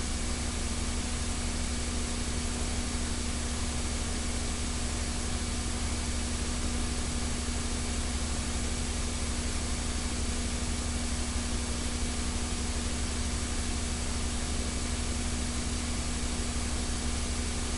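Steady recording hiss with a low electrical hum and faint steady whines, unchanged throughout, with no speech or other events: the noise floor of an old recording during a long gap in the talk.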